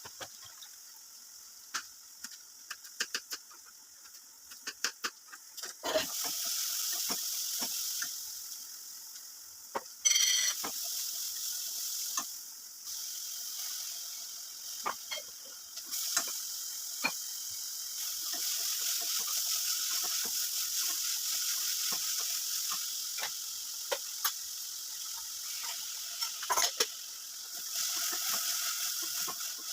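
Tempering sizzling and crackling in hot oil in a cooking pot, with the clicks of a spoon stirring against the pan. The sizzle swells louder about six seconds in and flares suddenly about ten seconds in, as when more ingredients go into the oil.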